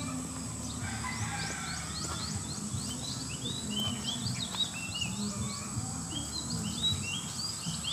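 Small birds chirping: many short, quick high notes repeating one after another, over a steady high insect drone.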